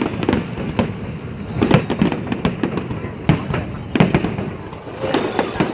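Fireworks going off: a rapid, irregular run of bangs and crackles, with heavier bangs about a second and a half, three and four seconds in.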